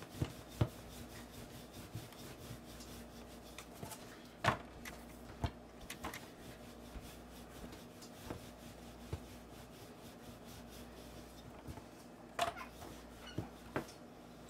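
Wooden rolling pin rolling out a round of samosa dough on a floured surface: a faint back-and-forth rubbing with a few light knocks.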